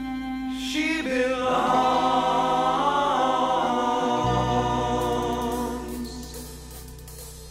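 Choral music: voices singing long held notes over a low sustained drone, fading out near the end.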